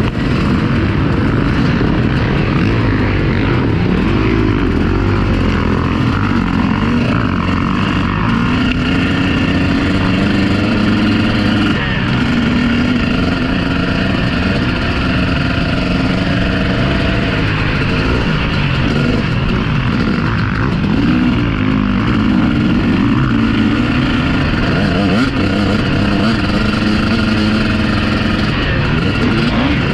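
Several motocross bikes running hard on the track, their engines revving up and falling back again and again as they accelerate and shift. The engine notes overlap, with one pitch dropping sharply about twelve seconds in.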